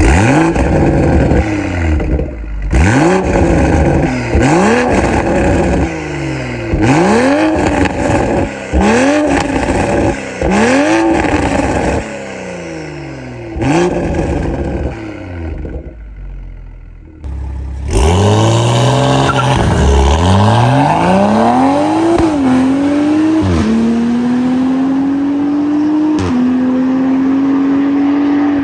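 Toyota GR Supra's 3.0-litre turbocharged inline-six (B58), tuned with a catted downpipe and stock cat-back exhaust, revved in about seven quick blips at a standstill. After a short break the engine pulls hard through several gear changes, each rising note dropping at the shift, then holds a steady high note.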